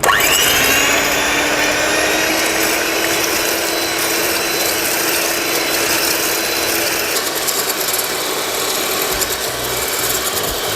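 Electric hand mixer switched on, its motor spinning up with a rising whine, then running steadily as the beaters whip egg whites in a bowl toward a fluffy foam. The tone shifts slightly about seven seconds in.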